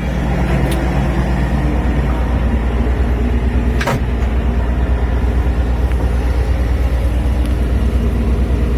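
Kubota diesel engine of a 2.7-ton mini excavator idling steadily. Two sharp clicks come through, one under a second in and one about four seconds in.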